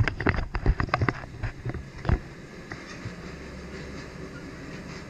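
Small amusement-park kiddie train clattering along its track: a quick, uneven run of knocks and clacks for about two seconds, then settling into a steady low rumble.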